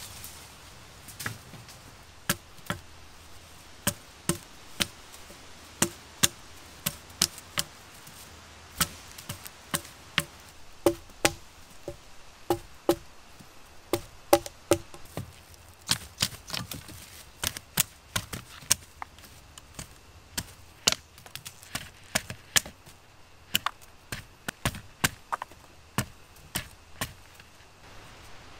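Wood being chopped with a blade tool: a long run of sharp, dry strikes, roughly one to two a second, some with a short hollow wooden ring.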